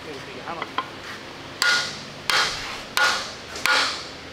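Hammer blows on a wooden block held against the muzzle of a 37mm gun barrel, driving the barrel into its mount: four sharp strikes about two-thirds of a second apart, starting a little over a second and a half in, each with a short metallic ring.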